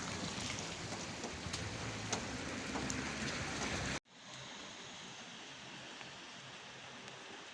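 Rain falling, with scattered sharp drop impacts ticking close by over a steady patter. About four seconds in it cuts abruptly to a quieter, even rain hiss.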